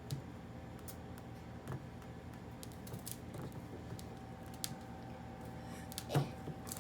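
Scattered light clicks and taps from hands working soap dough at a table, the sharpest one about six seconds in, over a faint steady hum.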